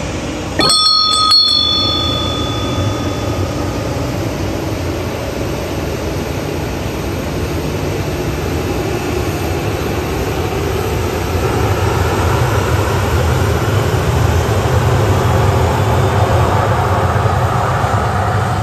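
Steady engine rumble from aircraft and ground service vehicles on an airport apron, growing louder in the second half. About a second in there is a sharp metallic clang that rings on for a couple of seconds.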